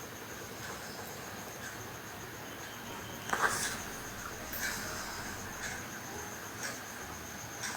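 A steady high insect trill, like crickets at night, with faint short noises about once a second; the loudest comes about three and a half seconds in.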